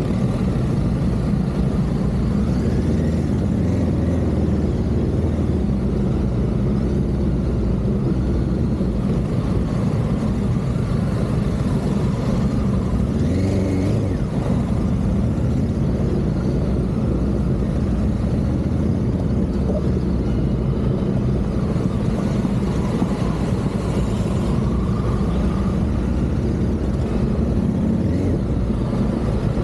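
Honda Africa Twin CRF1100's 1084 cc parallel-twin engine running steadily as the motorcycle is ridden.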